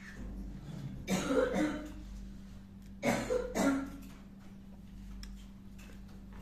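A person coughing twice, each cough lasting about a second, over a steady low hum.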